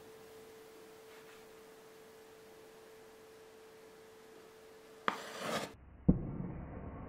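Flash paper inside a balloon igniting: after a faint steady hum, a short sudden hiss about five seconds in as the paper flashes, then a thump and a lower rushing sound of the burn.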